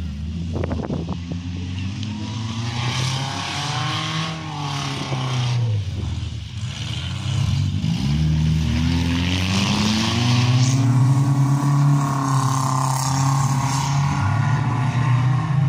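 Several demolition-derby car engines revving up and down, overlapping, their pitch rising and falling again and again. A few sharp knocks come about a second in.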